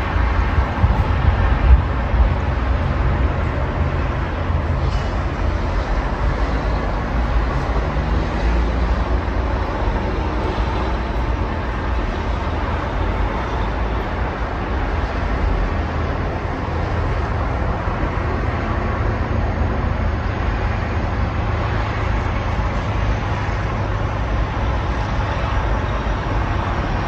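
Steady road traffic from a multi-lane highway: engines and tyres of passing cars and lorries blending into a continuous deep rumble, with one engine rising in pitch about eight seconds in.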